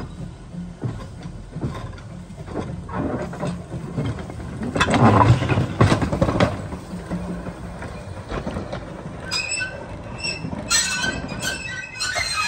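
Quarry Hunslet narrow-gauge steam locomotive running slowly past, with a low rumble and knocks that are loudest as it passes close, about five to six seconds in. From about nine seconds its wheels squeal on the rails in several high tones, on and off until the end.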